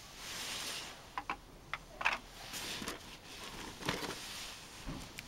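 Handling noise in a cardboard box: a brief rustle, then a string of light clicks and knocks as hard cast-resin orgonite pieces are picked up, knocked together and set back in the box.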